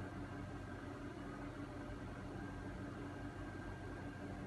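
A steady low mechanical hum with a few constant tones and a faint hiss underneath.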